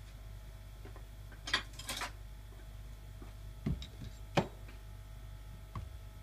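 A ball-peen hammer and a thin metal rod being set down on a rubber mat on a workbench: a few short knocks, the loudest about halfway through, after a brief rustle near the start. A low steady hum runs underneath.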